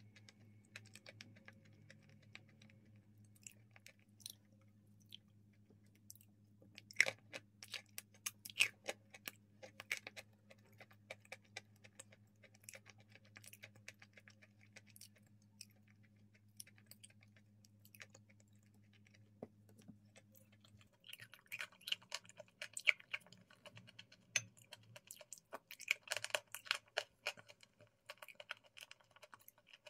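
Close-up mouth sounds of eating thick cream: scattered wet chewing clicks and lip smacks over a steady low hum. The hum stops about two-thirds of the way through and denser smacking and chewing take over.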